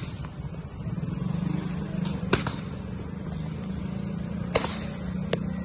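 Cricket bats striking tossed practice balls: two sharp knocks about two seconds apart, and a fainter one just after, over a steady low hum.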